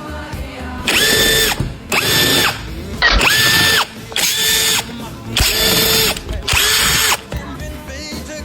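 Cordless power tool, such as an electric ratchet or drill, run in six short bursts. Each burst spins up quickly, holds a steady whine and stops.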